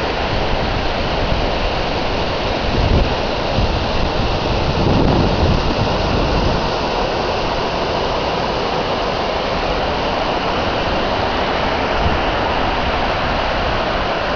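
Rushing water of a mountain stream and waterfall, a steady loud wash, with a few stronger low rumbles between about two and six seconds in.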